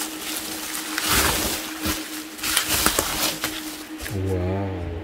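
Packing material rustling and crinkling in repeated surges as an item is unwrapped, with a few sharp knocks of handling. A short hummed vocal sound with a wavering pitch comes near the end.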